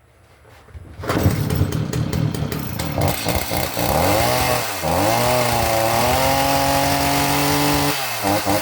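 Stihl MS 310 two-stroke chainsaw engine coming in about a second in, revving up and down, held at high revs for a few seconds, then dropping back near the end. It runs freely again after sawdust and gunk that had locked up the bar and chain were cleaned from the bar and sprocket.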